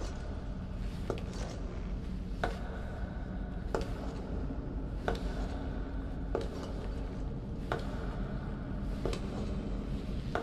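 Slow, evenly spaced footsteps knocking on stone steps, about one every 1.3 seconds, each with a short echoing ring, over a low steady drone.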